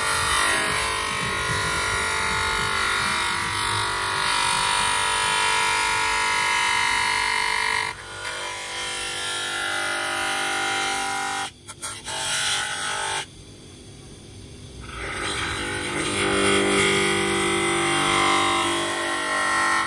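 Bench-mounted electric motor spinning a small disc as the edge of a plastic tail light lens is pressed against it, cutting into the plastic. The loud, high whining screech breaks off briefly a few times, drops away for a couple of seconds past the middle, then comes back and stops suddenly at the end.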